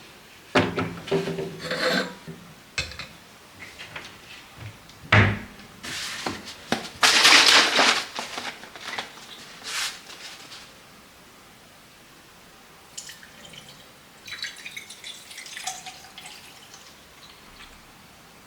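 Household cleaning sounds: items knocking and clattering as they are handled, a heavy thump about five seconds in, and a brief rushing hiss of water about seven seconds in, then quieter rustling.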